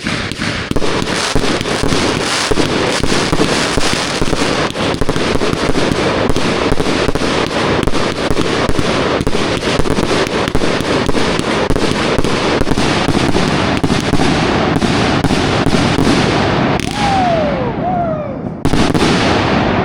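A 50-shot consumer fireworks cake (Pyro Demon Brain Drain, 1.2-inch tubes) firing in rapid succession. Its launches and bursts, including hard-hitting salutes, come several a second in a steady volley.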